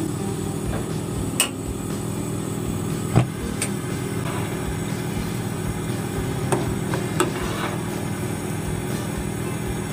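A metal ladle stirring in a stainless steel pot of coconut milk, knocking against the pot in about five short sharp clinks, over a steady low hum.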